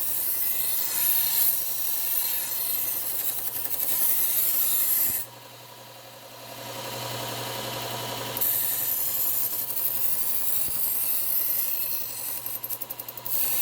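Knife blade being ground on a slow-speed bench belt sander with a Cubitron 120-grit belt: a steady rasping hiss over the motor's low hum. About five seconds in the blade comes off the belt and for some three seconds only the running motor is heard, then the grinding resumes.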